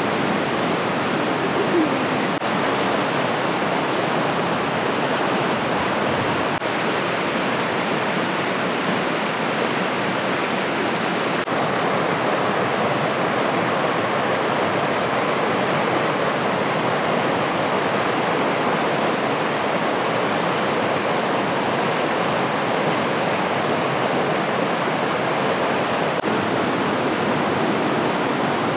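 Mountain stream rushing over rocks: a steady rush of flowing water. Its brightness shifts slightly twice, a few seconds in and again near the middle.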